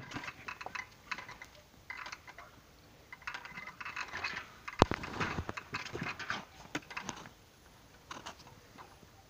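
Dogs play-fighting on a concrete floor: scuffling and scratching of claws and paws in short flurries, with one sharp knock about five seconds in.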